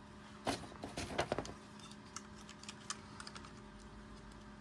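Plastic model-kit parts being handled and pressed together: a quick cluster of sharp plastic clicks and clacks about half a second in, then scattered light ticks.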